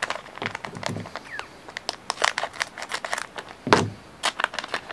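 Foil trading-card booster-pack wrapper crinkling and crackling in a run of irregular sharp crinkles as it is handled and opened, with one louder crackle late on.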